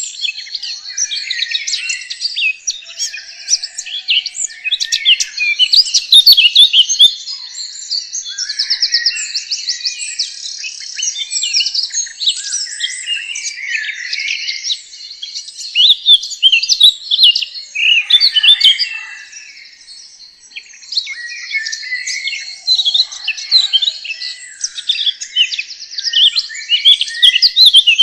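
A chorus of songbirds, many short chirps and whistled phrases overlapping, with fast trills now and then and a brief lull about two-thirds of the way through.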